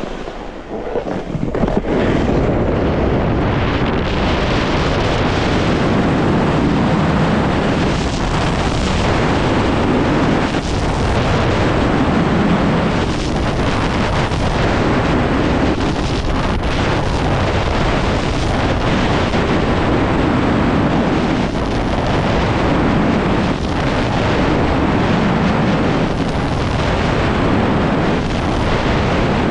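Heavy wind rushing over an action camera's microphone as a snowboard runs fast down a groomed piste, mixed with the scrape of the board on the hard snow. The noise builds up over the first couple of seconds, then holds, swelling and easing every couple of seconds.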